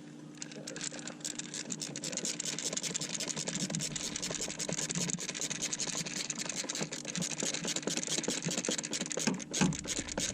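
Rapid ratcheting clicks of a hand tool driving a cover screw in, running steadily for most of the stretch over a steady low hum, with one louder knock near the end.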